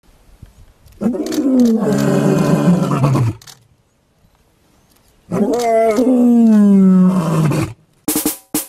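A lion roaring: two long roars, each falling in pitch, the second starting about five seconds in, followed by a couple of short sharp hits near the end.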